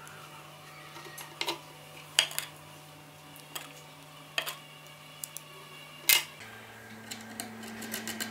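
Small knife-handle parts, a thin metal plate among them, being handled and fitted by hand: about eight light clicks and taps scattered over a steady low hum, the loudest about six seconds in.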